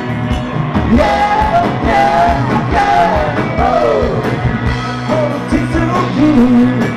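Live rock band playing: a male singer's voice over electric guitars, bass and drums.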